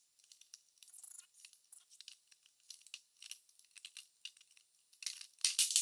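Letter wheels of a five-letter cylinder combination padlock being turned by hand: a run of faint, irregular small clicks, with a few louder clicks near the end.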